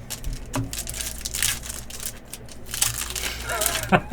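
Trading-card pack wrappers crinkling and crackling as packs are handled and opened by hand, with irregular light clicks and two louder bursts of crinkling.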